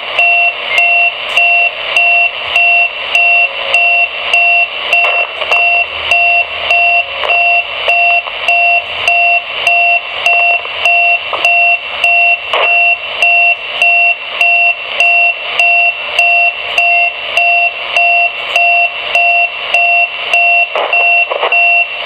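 Repeating electronic beep received on a CB radio on 27.395 MHz (channel 39), each beep a low and a high tone sounding together, recurring in a quick even rhythm over radio static. It is an unidentified wide AM signal, heard in every mode, that may be a channel marker, jamming or a practical joke.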